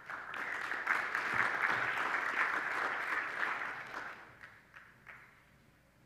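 Audience applauding. The applause dies away about four seconds in, leaving a few last scattered claps.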